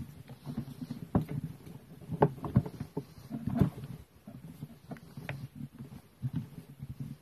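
Scattered clicks and light knocks of hand tools and plastic strimmer parts being handled during reassembly, over a steady low hum.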